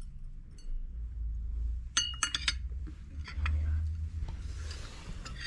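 Metal teaspoon clinking against a china teacup: a quick run of ringing clinks about two seconds in, followed by softer scattered taps.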